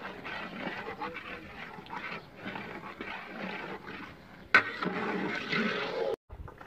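Long-handled ladle stirring and scraping thick semolina halwa against the sides of a large aluminium cooking pot, with voices in the background; the sound cuts off suddenly near the end.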